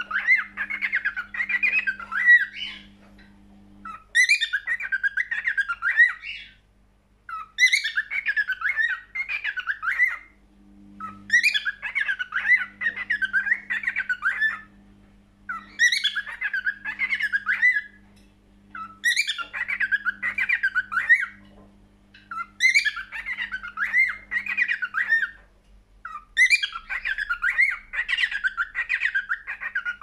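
Cockatiel singing: the same warbling phrase repeated about eight times, roughly every three and a half seconds. Each phrase opens with a sharp high note and runs on as a fast wavering warble, with short pauses between phrases.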